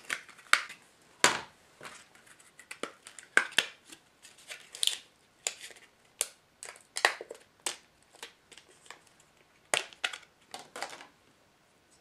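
Plastic packaging of a RAM stick being handled to take the next module out: irregular crackles and sharp clicks, stopping about a second before the end.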